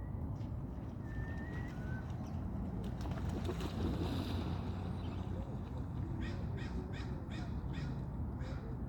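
A crow cawing repeatedly, about six caws in quick succession in the second half, over a steady low rumble of background noise.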